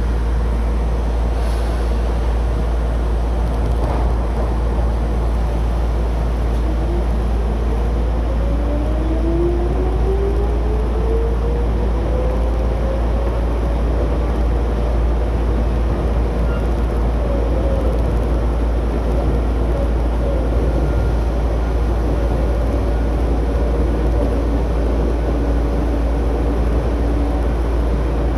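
Electric train at a station, over a steady low rumble. About six seconds in, its motor whine rises smoothly in pitch as it gathers speed, then levels off into a steady hum.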